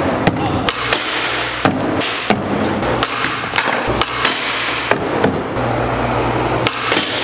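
Skateboard wheels rolling on a concrete skatepark floor, with frequent sharp clacks of the board hitting the floor and rail as a trick is attempted.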